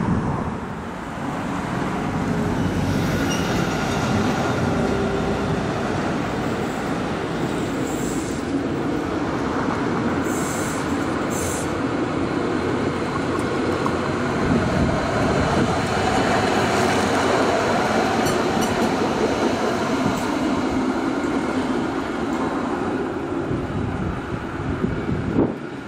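Stadler Variobahn five-section low-floor tram running past on its rails, a steady rolling and motor noise, with brief high wheel squeals about ten seconds in.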